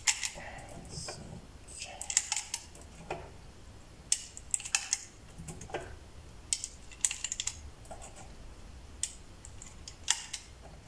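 9×19 mm cartridges being pressed one by one into a pistol magazine, a sharp metallic click about every second at an uneven pace.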